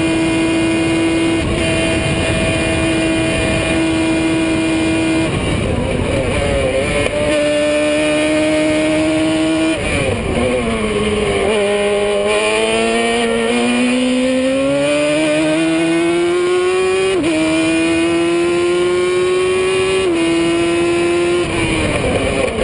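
Onboard sound of a Formula Gloria single-seater race car's engine running hard at high revs, with wind rush over the open cockpit. About ten seconds in the engine note falls sharply as the car slows for a bend, then climbs steadily again as it accelerates out, stepping at the gear changes.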